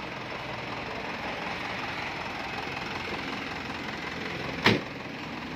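An engine idling steadily, with one sharp knock about four and a half seconds in.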